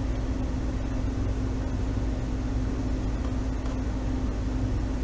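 Cooling fan running: a steady low hum with one held tone over it.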